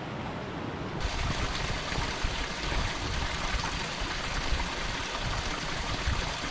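River water rushing, a steady noisy flow that turns fuller and brighter about a second in.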